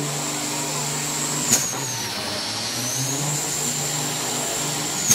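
Western Star semi-truck's diesel engine held at high revs during a burnout, running steadily with a high wavering whine over it. Two sharp bangs cut through, about a second and a half in and again at the end.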